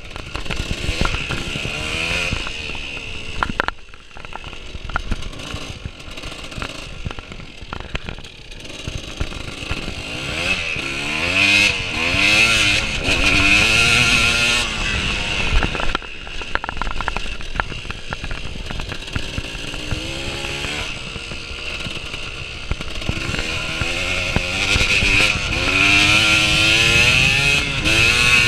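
Dirt bike engine recorded on board, revving up and down as the rider rides the course: the pitch rises repeatedly under acceleration and briefly drops off where the throttle is rolled off, loudest in the middle and near the end.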